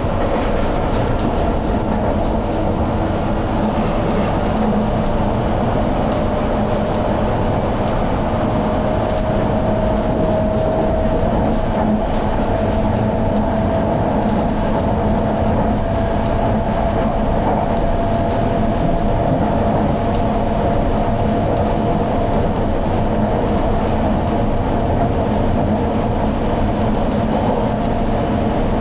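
London Underground Hammersmith & City line train running between stations, heard from inside the carriage: a steady rumble of wheels on rail with a motor whine that rises slowly in pitch.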